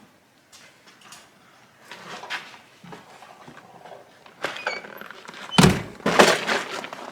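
Light rustling and handling noises, then a door banging shut about five and a half seconds in, with a second loud knock just after.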